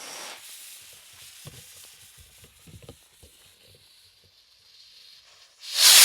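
Lit fuse of a consumer firework rocket sizzling, loudest at the start and then a faint hiss. Right at the end the rocket motor ignites with a loud, short whoosh as it launches.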